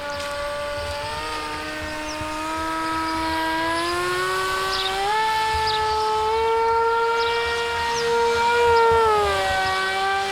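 Electric RC model plane's motor and propeller whining in flight. The pitch climbs over the first few seconds, holds, then drops near the end as the plane passes.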